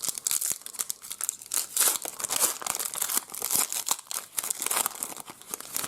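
Foil trading-card pack wrapper crinkling and tearing as it is ripped open by hand, a dense run of irregular crackles.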